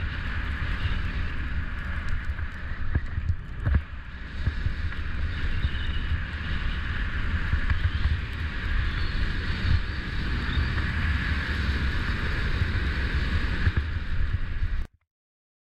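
Wind buffeting the microphone of a camera on a fat bike rolling down a groomed snow slope, a steady low rumble with the hiss of the fat tyres on packed snow. It cuts off suddenly about a second before the end.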